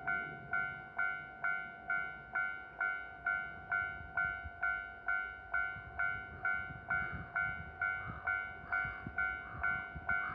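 Japanese railway level crossing warning bell ringing steadily at about two strikes a second, with the low rumble of a KiHa 122 diesel railcar crossing, strongest in the second half.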